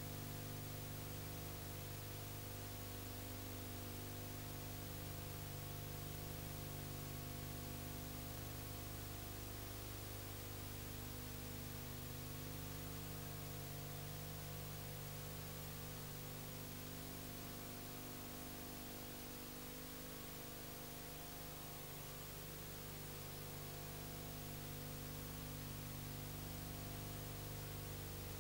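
Steady electrical hum with a constant hiss and no other sound: the empty sound track of a silent home-movie film transferred to video.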